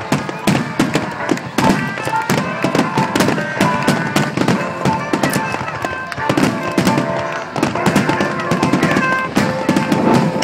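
Barrage of aerial firework shells bursting in quick succession, many overlapping bangs a second with crackling, with music playing underneath.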